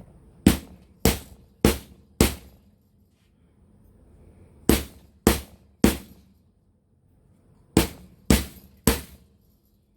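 Chasing hammer striking a 16-gauge wire S-clasp to flatten and work-harden it: sharp ringing metal taps about half a second apart, in a run of five, then three, then three.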